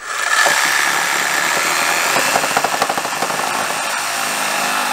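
Cordless reciprocating saw running and cutting through hard plastic, the blade's rapid strokes giving a steady, rasping buzz that starts at once at full speed.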